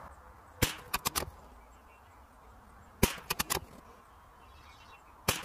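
Savage Mark II FV .22 LR bolt-action rifle firing three shots about two and a half seconds apart, the last near the end. After each of the first two shots come a few quick, quieter clicks of the bolt being cycled.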